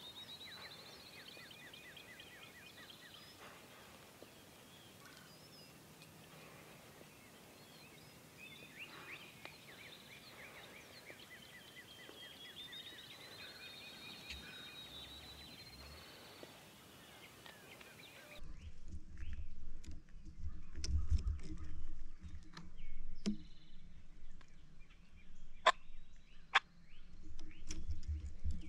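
Faint birdsong, rising trilled phrases repeated several times, carrying over a quiet open field. About two-thirds of the way in it gives way to louder close rustling of camouflage clothing and brush, with a few sharp clicks and a low wind rumble on the microphone, as a bowhunter shifts with his compound bow in cover.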